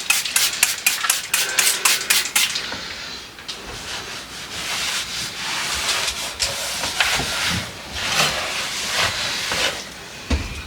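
Rapid back-and-forth scrubbing, about five even strokes a second, for the first two seconds or so. It gives way to an uneven hissing with scattered knocks.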